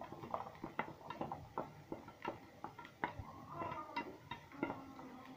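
Diced red onion frying in hot oil in a non-stick frying pan: a quiet sizzle with irregular small crackles and pops.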